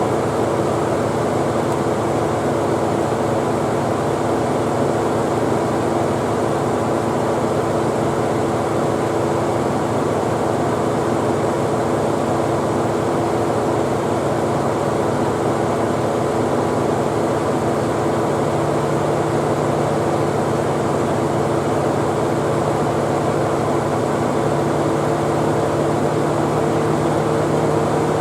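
Nissan Elgrand E51 running with its air conditioning on: a steady mechanical hum with several held tones. A lower tone grows stronger about two-thirds of the way through. This is the abnormal air-conditioning noise that three compressor replacements have not cured.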